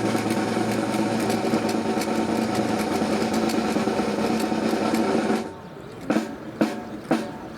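Snare drum roll keeping time for a military rifle drill, held for about five seconds, then cutting off into single sharp drum strikes about every half second.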